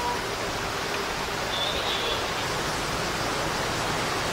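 Steady rushing wind noise with an uneven low rumble, wind buffeting the microphone on the open deck of a moving boat. A brief faint high tone sounds about halfway through.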